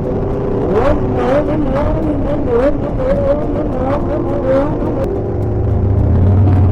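Motorcycle engine running on the road under background music, with a steady beat and a wavering melody. The engine's low hum gets louder a little after five seconds in.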